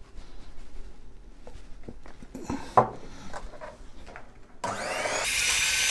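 A few light clicks and a sharp knock, then near the end an electric hand mixer starts with a rising whine, steps up in speed and runs steadily, its beaters whisking cake batter.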